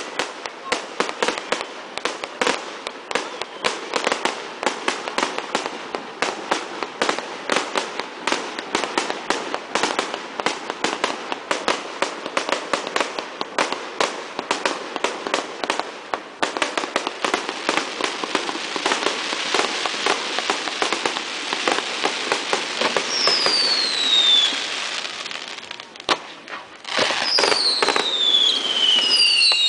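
Fireworks display: a rapid run of sharp bangs from bursting aerial shells, thickening about halfway into a dense, continuous crackle. Near the end, whistling shells give falling whistles over more bangs.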